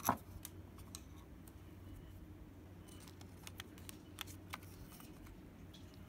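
Small clicks and ticks of a laptop hard drive in its metal caddy being worked loose and lifted out of the drive bay: one sharp click just after the start, then scattered fainter ticks over a low steady hum.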